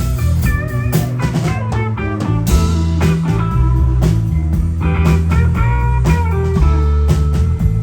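Live blues-rock band playing an instrumental passage: lead guitar with bending notes over a steady bass line and drum kit.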